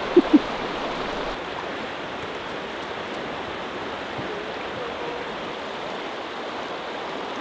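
Shallow, fast-flowing river rushing steadily over its gravel bed. Two short vocal sounds come right at the start.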